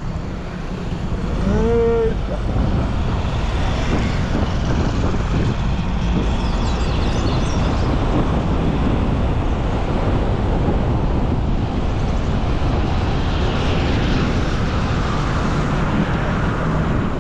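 Chevrolet S10 pickup driving at road speed: steady road and wind noise, with a brief rising-and-falling tone about two seconds in.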